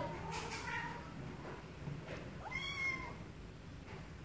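A cat meowing: one clear meow about two and a half seconds in that rises and then falls in pitch, with the end of another meow at the very start.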